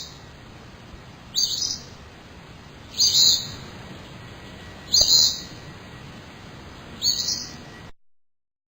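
A bird calling: a short, high-pitched call repeated about every two seconds, five in all, over a steady background hiss. The sound cuts off suddenly near the end.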